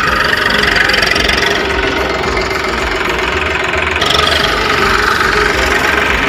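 Eicher 380 tractor's three-cylinder diesel engine running steadily as it pulls a seed drill across the field.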